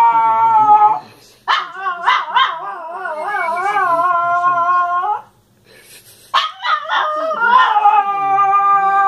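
Small dog howling in long, wavering notes: one howl ends about a second in, a second runs for a few seconds, and after a short pause a third begins.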